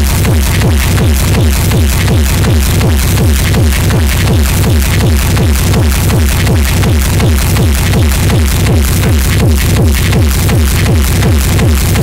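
Techno music with a fast, steady kick drum; each hit drops in pitch.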